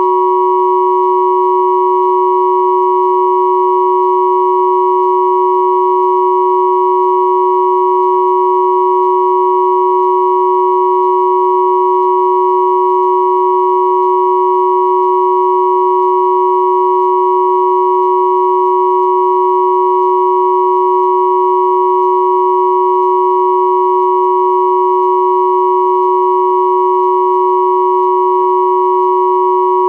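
Three pure sine tones at 369, 963 and 1111 Hz sounding together as one steady, unchanging chord, with a few fainter higher tones above them.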